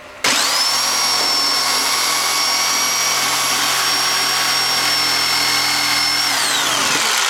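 Ryobi reciprocating saw starting abruptly and running at steady full speed while cutting into a rotten wooden floor joist. Near the end the motor winds down, falling in pitch as the trigger is let go.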